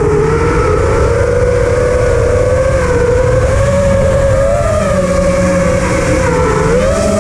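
FPV quadcopter's motors and propellers whining at a fairly steady throttle, the pitch wavering slightly, then dipping and rising again near the end.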